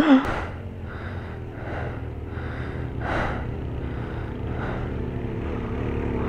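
Motorcycle engine running at low revs, growing slowly louder as it climbs closer. Over it comes heavy breathing close to the microphone in regular puffs.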